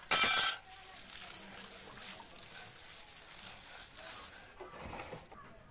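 Dry straw rustling and crinkling as a handful is crumpled and broken up at a clay stove. It opens with a loud brief rustle close by, then goes on as a steady crinkling rustle, fading about five seconds in.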